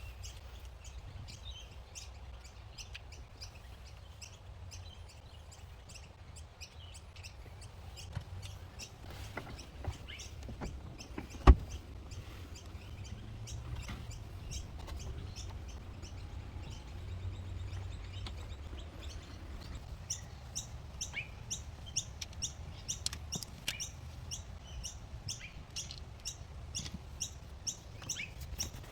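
Small birds chirping, with a run of quick repeated chirps in the second half, over a faint low rumble. A single sharp click about eleven seconds in.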